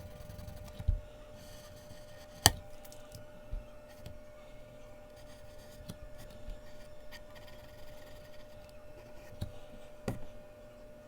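Mechanical pencil scratching on Bristol paper in short strokes, with a sharp tap or knock about two and a half seconds in and a softer one near the end. A faint steady hum runs underneath.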